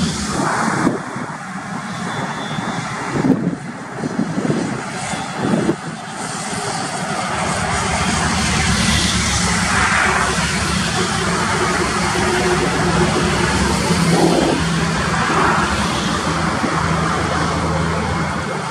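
Diesel engine and tyres of a MAN tractor unit hauling a loaded tipper semi-trailer as it drives past, the steady engine drone building from about seven seconds in. Other traffic passes by in the first few seconds.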